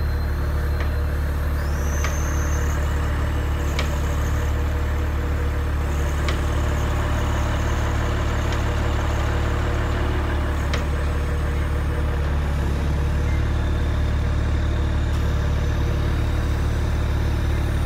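Heavy truck's diesel engine running steadily while its truck-mounted crane unloads concrete blocks, with a few faint ticks and a short high whine about two seconds in.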